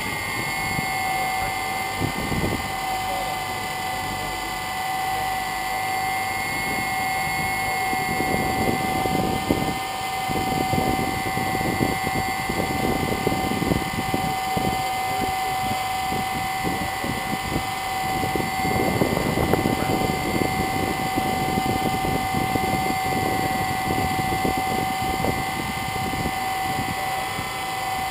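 DJI Phantom quadcopter's motors and propellers spinning up right at the start, then running steadily on the ground without lifting off. It is a steady two-note hum, with gusty rushing from the propeller wash on the on-board microphone.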